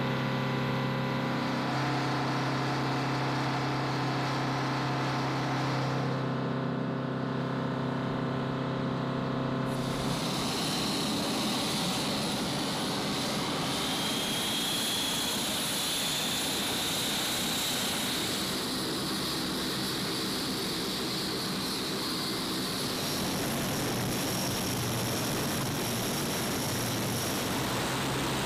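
Turboprop engines of a C-130 transport running on the ground: a steady drone with layered engine tones. About ten seconds in, the sound changes suddenly to a rushing propeller noise with a high whine over it.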